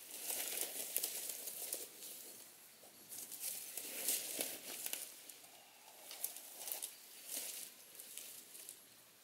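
Dry leaves and twigs rustling and crackling in irregular bursts as a person shifts about on leaf litter inside a shelter of stacked branches.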